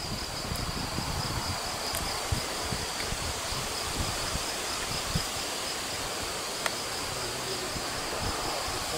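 A steady high-pitched insect trill from the summer meadow, with wind rumbling on the microphone.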